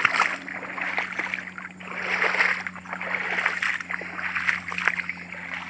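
Footsteps wading through shallow floodwater and wet grass: a run of uneven sloshing splashes.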